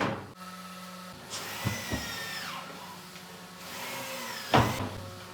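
Woodworking power tool's motor whining, its pitch falling twice as it winds down, with a sharp knock at the start and another about four and a half seconds in.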